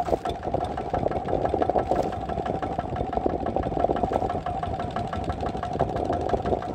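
Kubota horizontal single-cylinder diesel boat engine running steadily, a rapid even beat of firing strokes.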